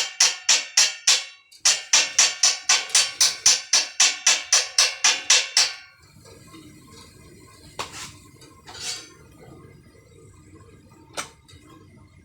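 A hammer striking steel in a fast, even run of about four or five ringing blows a second, with a short break just over a second in. The blows stop about six seconds in, leaving a few light clicks.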